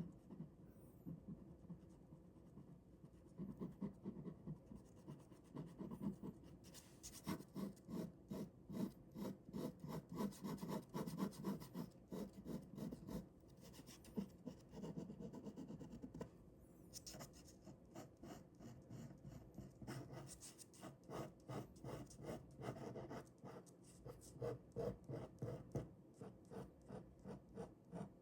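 Ballpoint pen scratching across paper in quick, rhythmic drawing strokes, with a few brief lulls.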